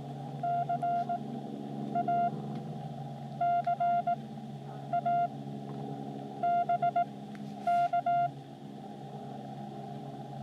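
Morse code (CW) from a ham radio transceiver, likely a Xiegu X6100: a single steady beep keyed on and off in six groups of dots and dashes, over a steady low hum.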